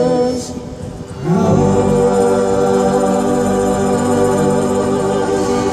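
Live band holding a sustained chord on an organ-voiced keyboard with acoustic guitars. The previous chord fades in the first second, then the final chord swells in and rings steadily.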